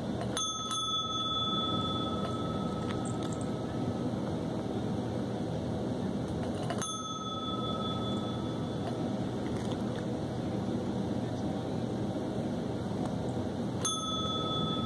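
Chrome desk call bell rung by a cat's paw pressing its plunger, as a trained call for treats: two quick dings near the start, another about seven seconds in and one near the end, each ringing on for a few seconds.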